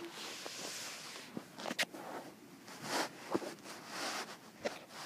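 Soft rustling and scuffing with a few light clicks in no regular rhythm: handling noise from hands and the phone moving against the cat's fur and the blanket.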